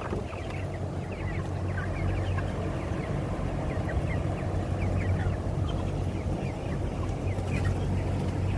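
A flock of broiler chickens peeping, many short high chirps overlapping throughout, over a steady low hum.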